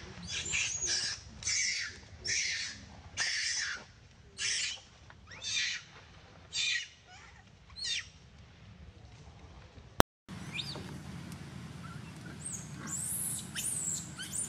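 Baby long-tailed macaque crying in distress: a series of high-pitched, arching screams about one a second, which stop about eight seconds in. A single sharp click comes about ten seconds in, followed by faint high chirps.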